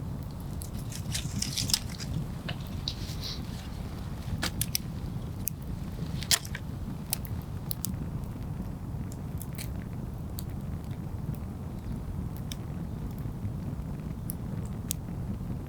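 Wood campfire burning, crackling with frequent sharp pops over a steady low rumble of flame. The loudest pops come about 2 and 6 seconds in.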